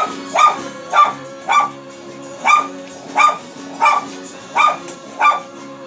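A dog barking repeatedly, about nine short sharp barks spaced roughly half a second to a second apart, over background music.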